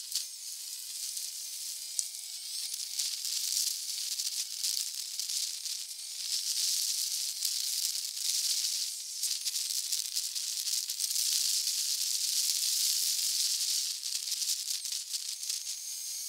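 Steady rushing hiss of wind and road noise on a camera mounted on a motorcycle at speed, with almost none of the engine's low sound coming through.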